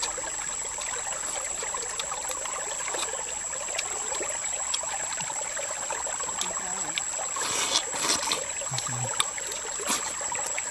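Small forest stream trickling steadily, with a steady high-pitched tone above it and a few brief louder noises about three-quarters of the way through.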